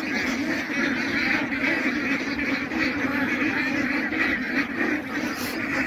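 A large flock of white domestic ducks quacking together in a dense, continuous chorus.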